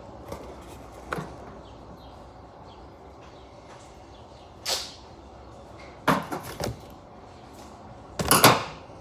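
Duct tape being pulled and torn by hand: short ripping bursts near the middle, a quick cluster of them about six seconds in, and the loudest rip near the end, with a few small handling clicks near the start.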